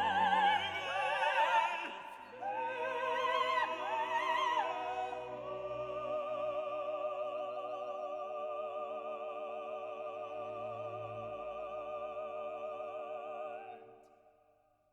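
Background music of operatic singing with strong vibrato. A long note is held for about eight seconds, then the music fades out near the end.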